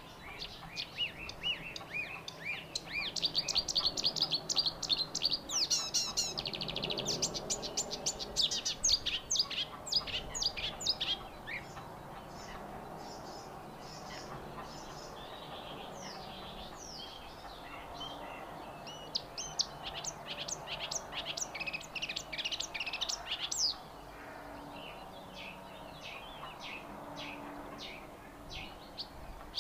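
Morning songbirds singing: rapid chirps and trills from several birds, busiest in the first ten seconds or so and again around twenty seconds in, with scattered calls in between and near the end.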